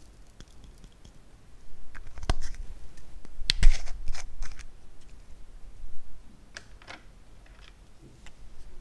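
Small round plastic cosmetic pot being handled and twisted open: scattered plastic clicks and rubbing, the sharpest clicks about two and three and a half seconds in.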